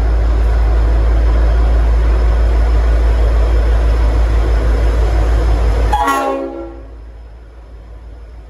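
Leslie RS5T five-chime air horn on a diesel locomotive blowing one long, loud, distorted blast over the engine's rumble. The blast cuts off about six seconds in, its chord sagging in pitch as it dies away, and a quieter locomotive rumble is left.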